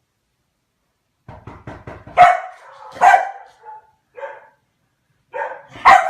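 A dog barking: a quick run of short sounds, then about five barks, the loudest about two and three seconds in and just before the end.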